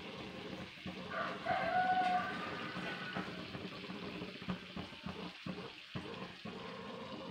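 A drawn-out animal call with several wavering pitched tones, lasting about two seconds and starting about a second in, over a steady low hum.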